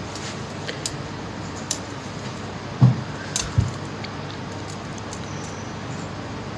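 Steady background hiss with a few light clicks and two dull knocks about three seconds in, like hands and objects bumping a countertop.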